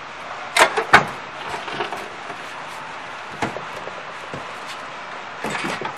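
A heavy steel chalk-making machine section knocking against a plywood crate as it is gripped and lifted out. Two sharp knocks about half a second apart near the start, a lighter one midway, and a short clatter near the end.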